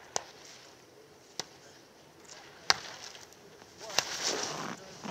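Giant slalom racer's skis carving and scraping over hard-packed snow, the hiss swelling in the last second or so as the skier passes close. Four sharp knocks come at even intervals of about a second and a quarter.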